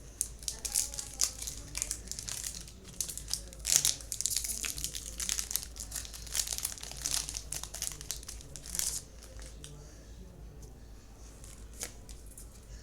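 Foil Pokémon booster pack wrapper crinkling and tearing as it is opened, a dense run of sharp crackles that eases off about nine seconds in.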